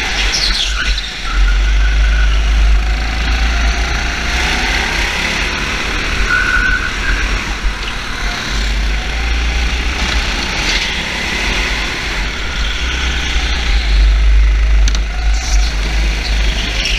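Motor vehicle engine running, its pitch rising and falling, over a steady deep rumble.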